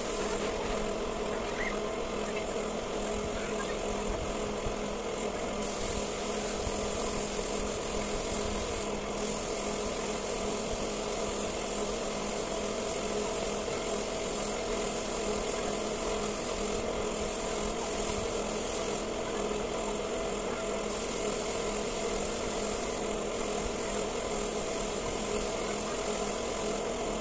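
Compressed-air spray gun hissing steadily as it sprays wood finish onto a timber bed frame, over a steady hum. The high part of the hiss drops out briefly a few times.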